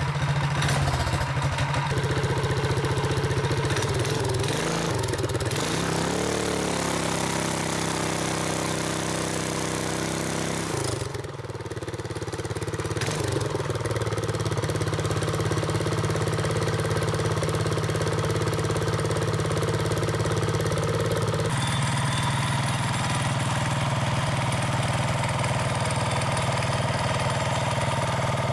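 Small Predator single-cylinder four-stroke engine on a mini motorcycle, running mostly at a steady idle. Its speed rises and falls briefly about five to seven seconds in, and the sound dips for a moment near eleven seconds.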